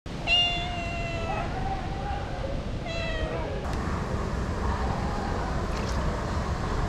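Calico cat meowing twice: one long, steady meow of about a second, then a shorter one about three seconds in. It is a hungry cat crying for food.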